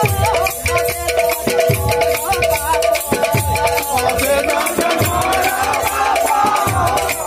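Odia village kirtan music: constant jingling hand cymbals, a deep drum stroke every second or two, and a wavering sung melody over two held drone notes.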